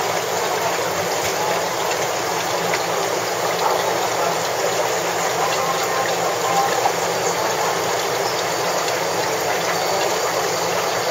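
Steady hissing noise with no distinct events.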